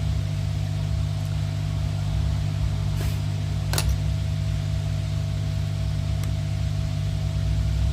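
Steady hum of a hot-air gun blowing, heating the adhesive under an iPhone 8's fingerprint sensor, with two short clicks about three and four seconds in.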